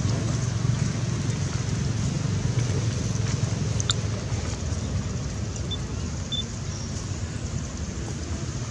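Steady low outdoor rumble with a faint hiss. There is a single sharp click about four seconds in and two short high chirps a second or two later.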